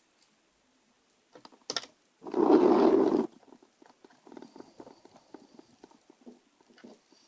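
Small hand-work noises from a laptop being screwed back together: two sharp clicks, then a loud rough noise about a second long, then a run of small irregular clicks and ticks of a screwdriver and screws working into the plastic bottom cover.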